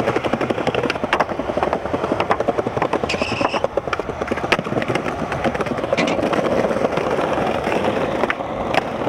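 Skateboard wheels rolling over stone plaza paving, a continuous rattling rumble with a few sharper clacks of the board.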